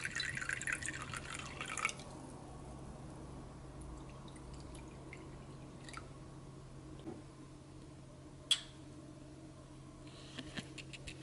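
Soju poured from a glass bottle into a small ceramic cup, a trickling, splashing stream that stops about two seconds in. After it comes a faint steady hum, with one sharp click later and a few light knocks near the end.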